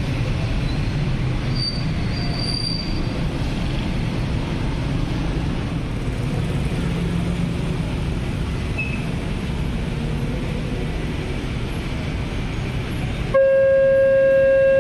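Steady rumble of road traffic, motorcycles and small vehicles. About a second before the end it gives way to the level-crossing warning alarm, which starts suddenly as one loud, steady electronic tone, signalling that a train is approaching.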